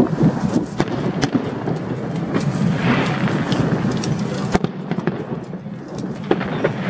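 Aerial fireworks going off: a run of sharp bangs and cracks with a crackling swell in the middle and one louder bang about four and a half seconds in, over a steady background din.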